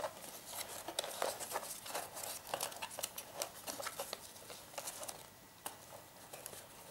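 Hands handling cardboard and paper strips: irregular small taps, clicks and rustles, thinning out near the end.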